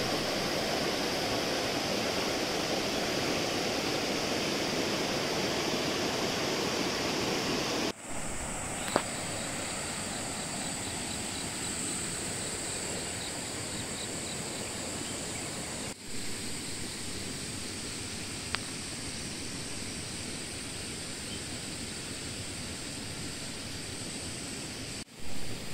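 Steady rushing of a shallow, rocky river. It drops in level about eight seconds in and again near sixteen seconds, a steady high-pitched hiss joins in from eight seconds on, and a single sharp click sounds about nine seconds in.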